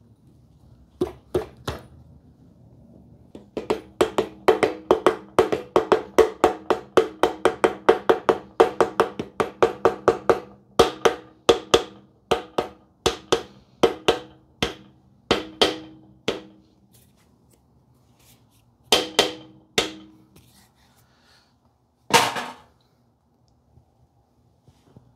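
Rubber mallet tapping the oil pump body into the case of an air-cooled VW 40 hp engine to seat it: a long run of sharp knocks, about three a second, each with a brief ring, then a few scattered strikes near the end.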